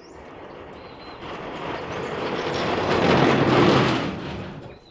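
A vehicle passing close by, swelling to its loudest about three and a half seconds in and then fading quickly.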